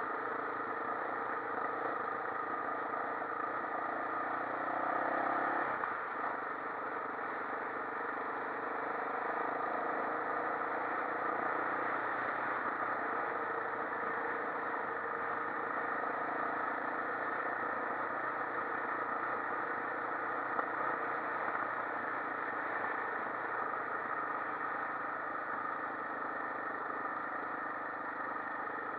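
Quad bike engine running steadily while riding, its note changing about five or six seconds in.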